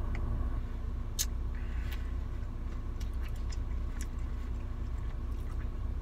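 Ice cream being chewed, with scattered small clicks from the plastic spoon and mouth, over a steady low hum inside a car.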